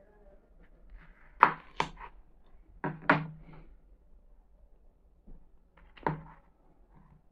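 Kitchen knife cutting melon on a plastic cutting board: sharp knocks of the blade against the board, two pairs about a second and a half and three seconds in, and one more knock about six seconds in.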